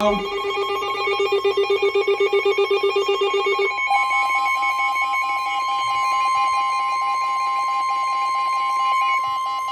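Emergency Alert System alert tones: a rapidly pulsing, warbling tone for about the first three and a half seconds, then a steady, unbroken attention tone. The attention tone signals the spoken severe thunderstorm warning that follows.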